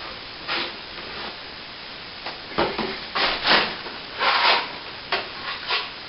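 Plastering trowel scraping and rubbing through wet plaster in short, irregular strokes, about nine of them.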